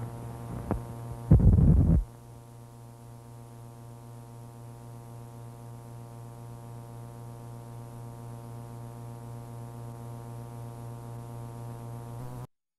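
A click and a short, loud burst of low, rough noise, then a steady electrical mains hum with many overtones that cuts off suddenly near the end.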